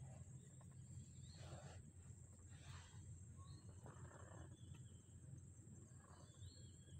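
Faint outdoor ambience: a steady high insect drone, a few short bird chirps, and a low rumble beneath, with soft rustles now and then.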